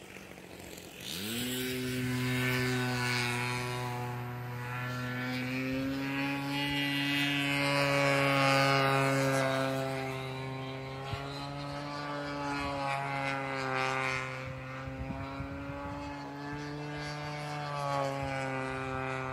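The 33cc two-stroke engine of an RC model airplane throttles up sharply about a second in for the takeoff run. It then runs steadily at high power as the plane climbs away, its pitch drifting slightly up and down.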